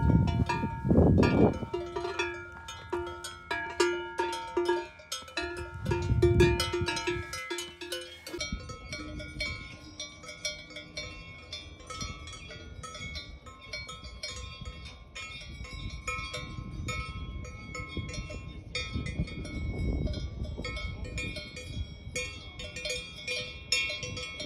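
Cowbells on walking cows clanging irregularly, with several bell pitches ringing together and two brief low rumbles. About 8 seconds in, the sound changes abruptly to a fainter, busier tinkling of many small ringing strikes.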